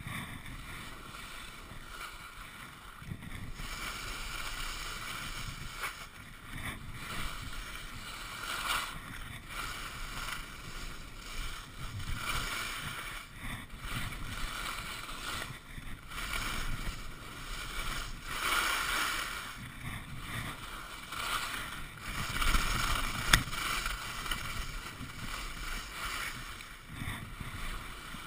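Skis hissing and scraping over groomed snow during a descent, the noise swelling and fading every second or two as the skier turns. One sharp click stands out near the end.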